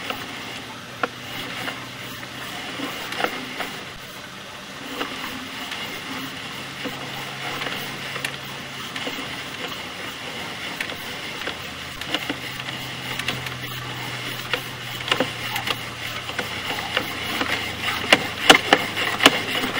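Sewer inspection camera's push cable being pulled back out of the drain line and onto its reel: a steady mechanical rattle over a low hum, with scattered clicks that get louder and more frequent near the end.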